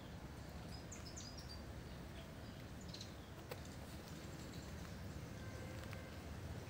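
Faint outdoor ambience: a steady low rumble, with a few short, high bird chirps about a second in and a single sharp click a little past the middle.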